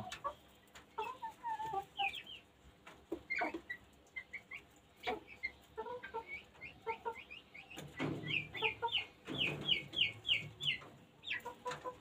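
Chickens clucking with short, high chick-like peeps scattered throughout, and a quick run of peeps from about eight seconds in.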